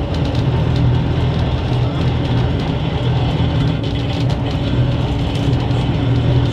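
Snaefell Mountain Railway electric tramcar running along the track, heard from inside the car: a steady low rumble and hum of the motors and wheels on the rails, with light clicks.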